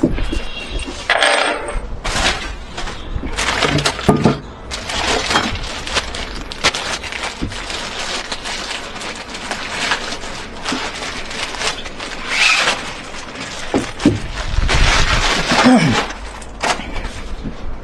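Irregular clicks, clinks and rattling of small hard objects being handled, with rustling in between.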